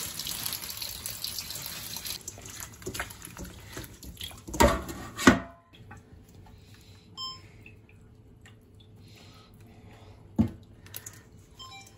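Kitchen tap running into a stainless steel sink as shrimp are washed, with two loud clatters about halfway. The water then falls much quieter, with light handling clicks and one sharp knock near the end.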